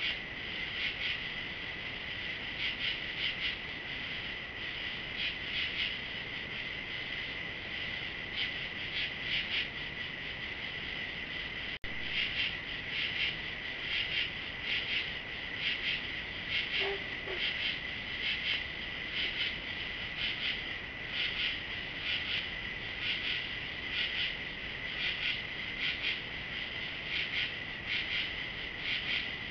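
Night insect chorus of crickets and other insects: a steady high trill with rhythmic pulsing chirps layered over it.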